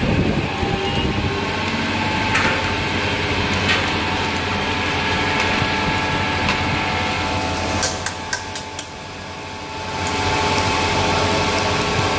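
Continuous namkeen extruder and fryer machine running: a steady motor hum, with a few sharp clicks about eight seconds in, where it turns quieter for about two seconds before the hum comes back.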